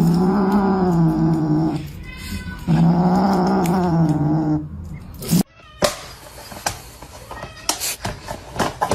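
A cat yowling: two long, wavering cries of about two seconds each, followed by scattered knocks and clicks in the second half.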